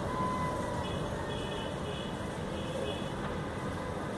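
Steady hiss of rain falling on puddles and pavement, with a faint high-pitched tone repeated a few times in the middle.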